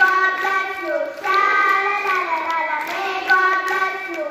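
Children's voices singing a song together, long held notes that slide from one pitch to the next.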